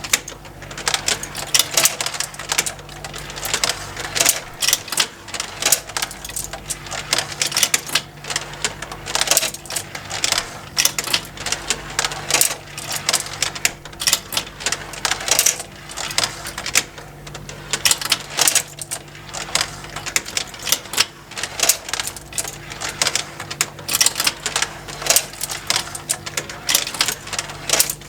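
Motorized plastic marble run toy: a steady low motor hum under a constant, irregular clatter of marbles clicking and rattling along plastic tracks and conveyor lifts.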